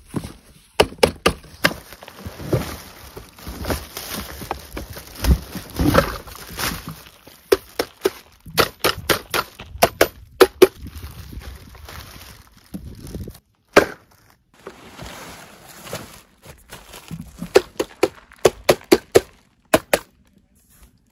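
Plastic-wrapped die-cast toy tractors being handled and lifted out of a cardboard box: plastic-bag crinkling with many sharp knocks and clicks, quieter for a moment past the middle.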